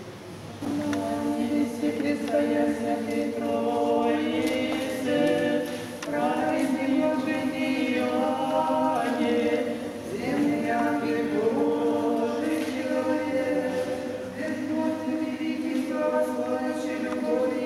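A cappella choir singing church chant: several voices sing together in long held notes, with short breaks between phrases. The singing begins about a second in.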